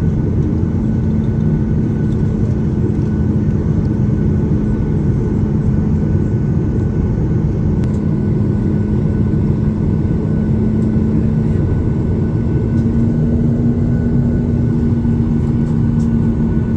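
Airliner engines and airframe heard from inside the cabin: a steady low rumble with a constant hum, the hum rising slightly about twelve seconds in.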